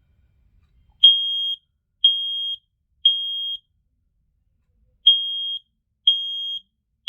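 Smoke alarm sounding its test signal in the temporal-three evacuation pattern: high-pitched half-second beeps of one steady tone, three in a row a second apart, a pause, then the next three. The first beep comes about a second in.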